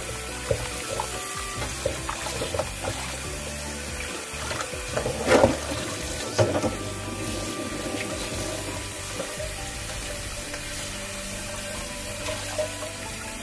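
Kitchen tap running onto pork spare ribs in a stainless steel bowl in a sink as they are rinsed and rubbed by hand, with water splashing. Two sharp knocks stand out about five and six and a half seconds in.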